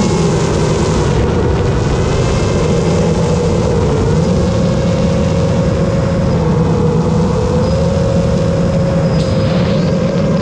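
Long-range FPV quadcopter's motors and propellers buzzing steadily in flight, heard from the onboard camera together with wind noise. The pitch shifts a little up and down as the throttle changes.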